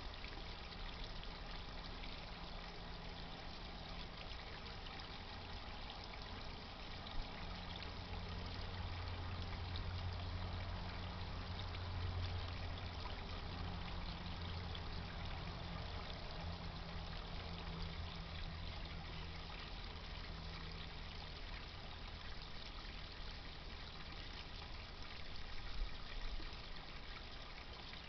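Steady trickling and splashing of water fed by a garden pond pump, with a low hum underneath that swells and fades in the middle.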